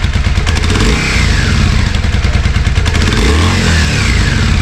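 Yamaha Virago 535's air-cooled V-twin engine running steadily, with a brief swell in engine sound a little past three seconds in. It is running at a lower idle, its throttle cable just moved to the correct setting after it had been idling too high.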